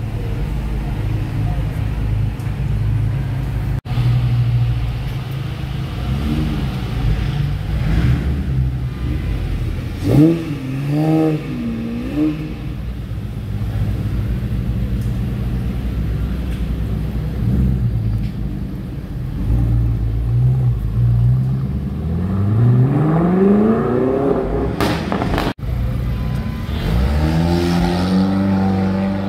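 Several sports car engines in turn: a low idling rumble, a few quick throttle blips about ten seconds in, then revs climbing in one long pull as a car accelerates away, and another car pulling away near the end.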